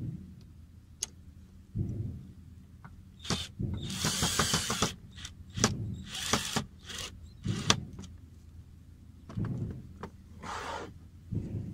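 Cordless drill run in several short bursts, drilling into a wooden frame, the longest burst about a second, with clicks between. A softer scrape of wood being handled near the end.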